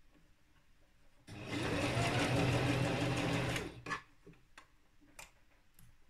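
Electric sewing machine stitching along an invisible zip in one short, steady run of about two and a half seconds, starting about a second in. A few small clicks follow.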